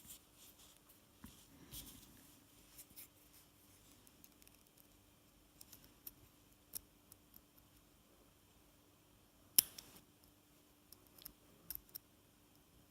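Faint, scattered clicks and light scrapes of a lock pick and tension wrench working the pin tumblers of an American Lock 5260 padlock, with one sharper click about two-thirds of the way through.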